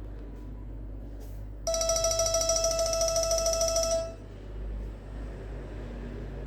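An LG MX210 ringtone playing through a Nokia 6300 phone's loudspeaker: one held electronic tone lasting a little over two seconds, starting abruptly just under two seconds in. It breaks off for a pause and starts again at the very end.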